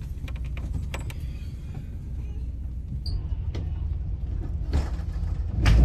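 Steady low rumble aboard a boat at sea, with scattered sharp knocks and clicks and a louder thump near the end.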